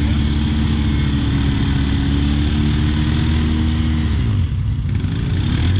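ATV engine idling with a steady hum, its pitch wavering briefly about four seconds in.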